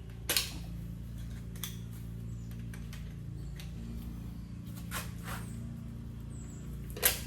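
Sharp metallic clicks of pliers working at a stuck hydraulic lifter in an engine block's lifter bore, a handful of separate clicks with the loudest near the end, over a steady low hum. The lifter is stuck in its bore and will not come out.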